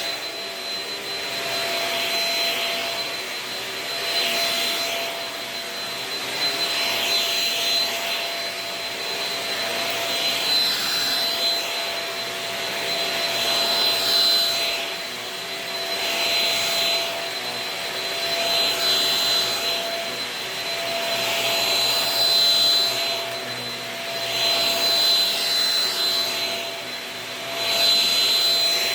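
Shark Rocket corded stick vacuum running on carpet, a steady motor whine with a high tone, swelling and easing in loudness every two to three seconds.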